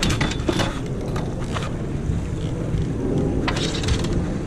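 Steady low rumble of wind on the microphone, with a few short splashes of water slapping against a small boat's hull.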